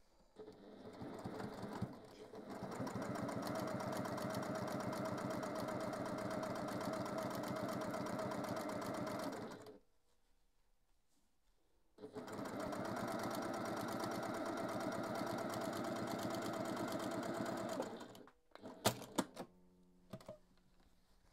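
Electric domestic sewing machine stitching a seam through layered patchwork fabric, its needle running at a fast, even rate. It builds up to speed over the first couple of seconds, stops for about two seconds in the middle, then sews again for about six seconds, followed by a few sharp clicks near the end.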